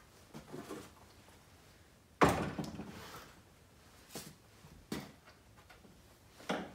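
A Husqvarna 350 chainsaw set down on a wooden workbench with one loud thump about two seconds in, followed by a few lighter knocks as it is shifted into place.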